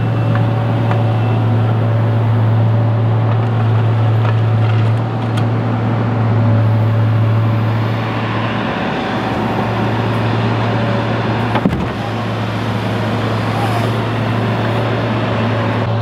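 Kubota SVL97-2 compact track loader's diesel engine running steadily under load with a faint hydraulic whine as its grapple lowers a log into a pickup bed. The engine eases off about halfway through, and there is a single knock a little later.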